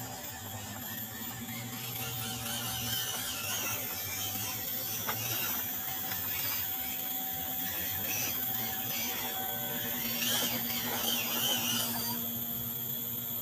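WPL D12 RC pickup truck's small brushed electric motor and gearbox running as it drives over dirt and leaves with a load of wood. The noise gets louder about ten seconds in.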